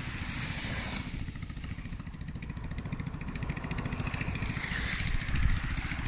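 Longtail boat engine running steadily with a rapid, even low putter, slowly growing louder.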